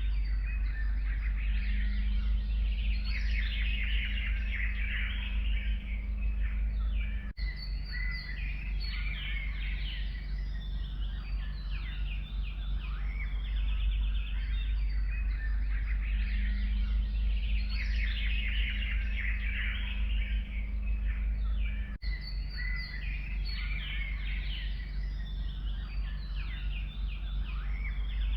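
Forest birdsong: several birds chirping and trilling at once in a dense chorus, over a steady low rumble. The recording loops about every 15 s, with a brief dropout at each splice.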